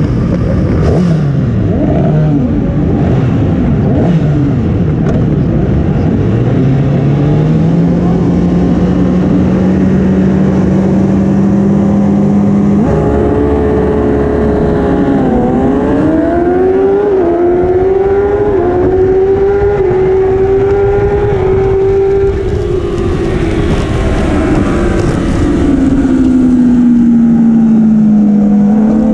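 Kawasaki racing motorcycle engine heard from on board: at first several other race bikes rev around it, then it pulls away and accelerates through the gears, its pitch climbing and dropping at each upshift about four times, holding steady, then easing off and picking up again near the end.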